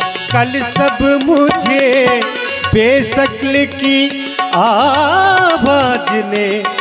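Ghazal music with tabla and harmonium: quick tabla strokes under a held harmonium melody, with the singer's wordless vocal line wavering over it, most clearly from about two-thirds of the way in.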